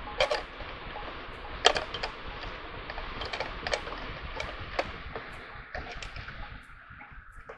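Cuisinart drip coffee maker brewing, a steady hiss with irregular ticks and pops from the heating water. The hiss falls away about seven seconds in.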